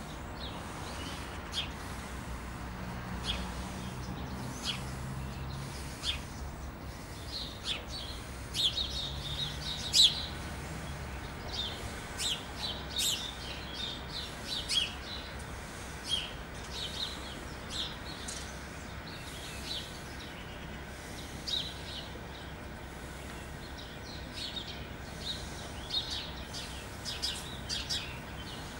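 Small birds chirping, many short high chirps in quick irregular succession, over a steady low background hum.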